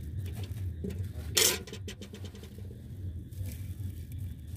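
Food being served by hand: a steel ladle scraping in a steel pot and puffed rice being dropped onto plates, with one short, loud clatter about a second and a half in. A low, steady rumble runs underneath.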